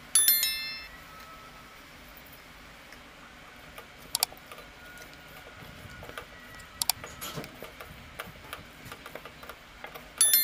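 A bright, ringing chime sound effect sounds just after the start and again near the end; these are the loudest sounds here. Between them come two sharp clicks and then a run of small irregular taps as a hand mixes raw chicken pieces with spice powder in a steel bowl.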